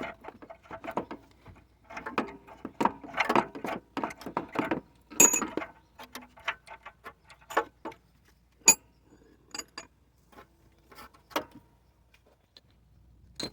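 Metal clicking and clinking of a socket on an extension as a loosened front oxygen sensor is spun out of the exhaust. Quick runs of clicks come in the first half, then scattered single clinks.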